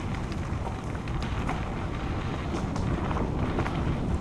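Mountain bike rolling along a dirt trail, with wind rumbling on the camera's microphone and scattered light clicks and rattles from the bike.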